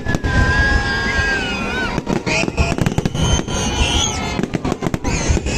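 New Year fireworks display going off: a rapid, continuous run of loud bangs and crackles, with crowd voices mixed in.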